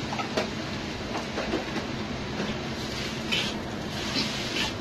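Udon noodles frying in a wok over a gas burner with a steady hiss, and a metal spatula scraping against the wok several times as the noodles are stirred, mostly in the second half.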